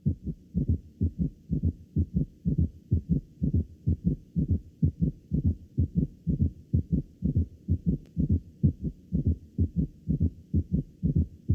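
Recorded heart sounds from a patient with both a third and a fourth heart sound (S3 and S4) added to the normal S1 and S2: a steady, rapid run of short low beats in a quadruple gallop rhythm.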